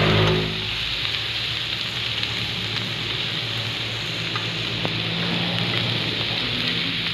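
Pork belly slices sizzling on a round tabletop Korean barbecue grill pan, a steady hiss of frying fat, with a few light clicks of metal tongs against the pan.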